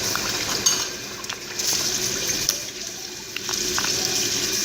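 A steady rushing noise, with a few small clicks and squelches from slime being stretched and squeezed in the hands.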